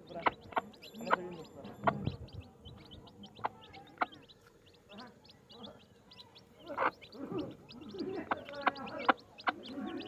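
Baby chicks peeping constantly in quick, high chirps, with a mother hen's low clucks coming in now and then, more of them near the end.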